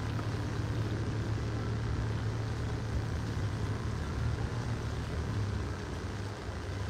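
A boat's motor running steadily at low speed, a constant low drone heard from aboard, with water and wind noise over it.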